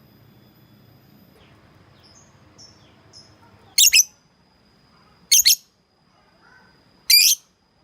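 Lovebird calling out to a rival: three short, shrill screeching calls about a second and a half apart, with a few faint chirps just before them.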